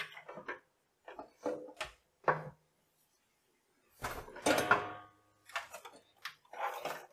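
Handling noise of a docking station and its cables on a desk: a string of short knocks and rustles, the loudest about four seconds in as the dock is set down.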